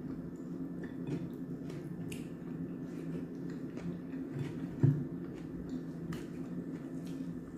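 Close-up eating sounds: chewing and small clicks as food is picked from the plate, over a steady low hum, with one sharper knock about five seconds in.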